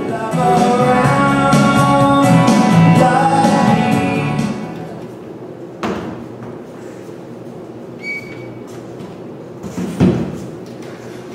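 A short burst of music with singing for about four seconds, then fading to room tone. A knock comes about six seconds in, and a wooden chair thumps near the end as a performer sits down on it.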